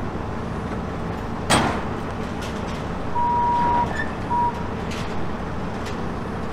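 Wheel loader's diesel engine idling steadily, with one sharp knock about a second and a half in and a high electronic beep a little after three seconds in, one long beep followed by a short one.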